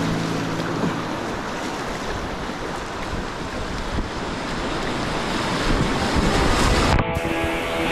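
Whitewater rapid rushing around an inflatable kayak, a steady loud wash of water with wind on the microphone. Background music fades out about a second in and comes back in near the end.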